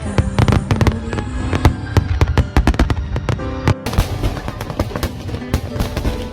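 Fireworks going off in many sharp bangs in quick succession, thinning out about four seconds in, with music playing over them.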